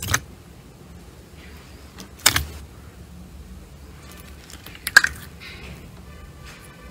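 Clear glitter slime being pressed and poked by hand. It gives three sharp pops, the loudest about halfway through, and squeaky squelching in the second half.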